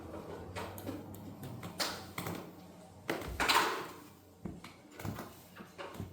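Handling noises: a string of clicks and knocks, with a louder scrape or rustle about three seconds in.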